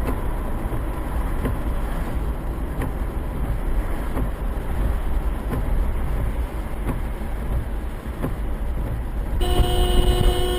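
Steady road noise of a car driving, then near the end a car horn sounds, one steady blast held for about two seconds.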